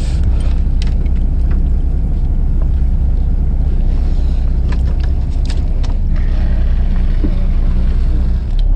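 A fishing boat's engine running with a steady low drone that shifts lower near the end, over scattered light clicks and knocks of tackle and a plastic basket being handled.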